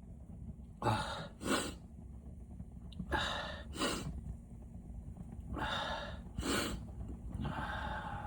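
Person with a heavy head cold breathing hard after a sneeze: short noisy breaths in pairs every couple of seconds, the last one longer.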